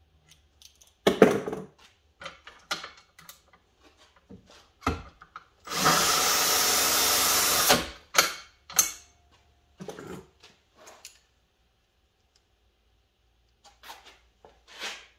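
Clicks and knocks of brass and tools being handled, then a cordless drill running steadily for about two seconds, driving a case-trimmer cutter that trims a 6.5 Creedmoor brass case to length. A few more handling clicks follow.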